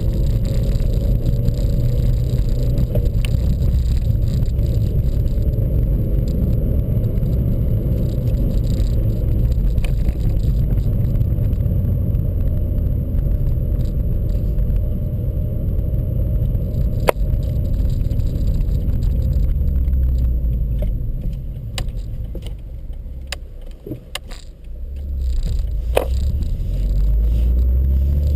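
Car engine and road noise heard from on board while driving, the engine note rising and falling and dropping away briefly in the second half before picking up again. A few sharp ticks sound in the second half.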